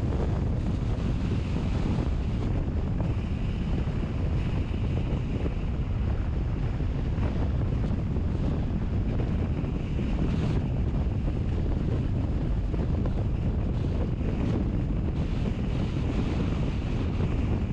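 Steady low rumble of wind and road noise from a moving vehicle, with no breaks or distinct events.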